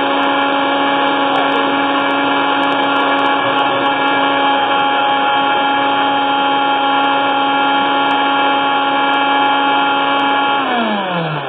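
Countertop blender motor running at a steady high speed, pureeing boiled tomatoes with garlic and onion. Near the end it is switched off and its whine drops in pitch as the blades spin down.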